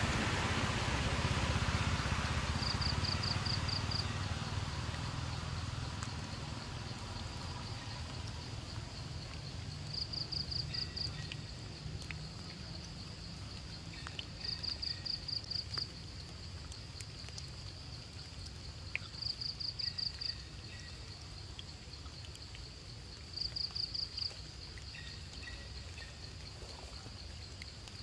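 An insect chirping in short runs of about six quick, high pulses, repeating every four to five seconds over a steady outdoor hiss that is louder in the first few seconds.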